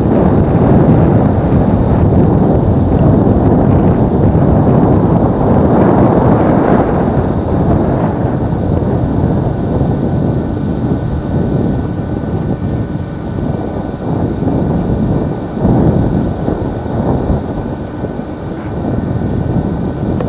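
Wind buffeting the microphone: a loud, continuous low rumble of noise that eases a little in the second half.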